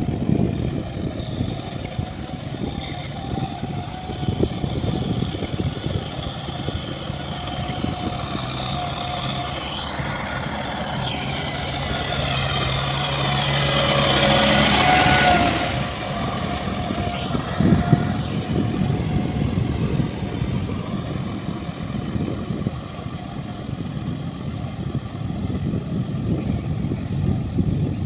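Kubota tractor's diesel engine working steadily as it tills a flooded rice paddy. It grows louder for a few seconds about halfway through as it passes close by, then falls away suddenly.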